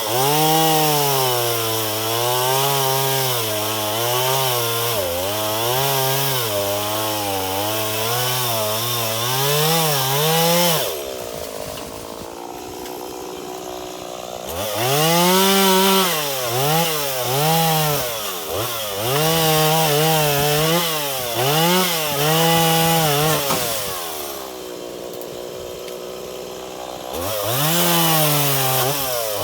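Gas chainsaw cutting through wood, its engine pitch wavering up and down under load. Twice it drops back to idle for a few seconds before being revved into the cut again.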